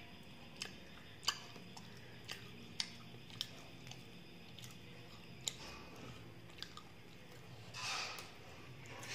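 Close-up eating sounds: a person chewing a mouthful of rice and fried fish, with lips and tongue making sharp wet clicks at irregular intervals. Near the end comes a softer noisy rustle.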